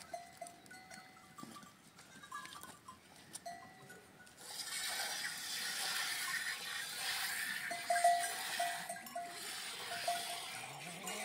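Bells on a flock of sheep and goats clinking on and off, with an animal call near the end. A steady rushing noise sets in about four and a half seconds in and lasts to the end.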